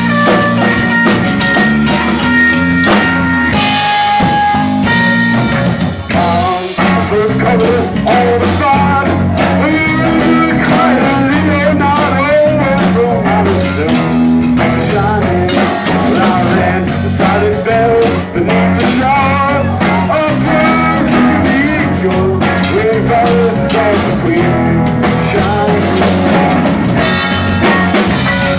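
Live rock band playing an instrumental jam: electric guitars, bass, drum kit and keyboard, with a lead line of bending, wavering notes over the steady groove.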